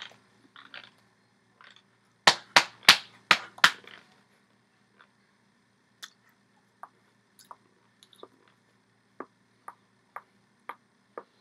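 Hands slapping sharply five times in quick succession, about a third of a second apart, followed by a run of faint clicks and taps from hand and body movement.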